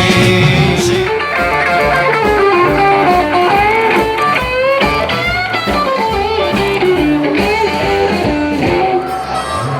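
Music: an instrumental passage led by guitar, with a steady beat and a melody line moving up and down.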